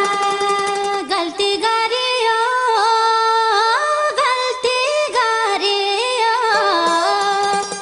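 Music: a single high melody line that holds notes and slides up and down between them, without words.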